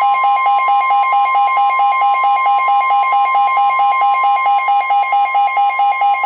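Emergency alert attention tone: a loud, steady high alarm tone with a second, lower beep pulsing rapidly over it. It is the signal that comes just before a severe thunderstorm warning is read out.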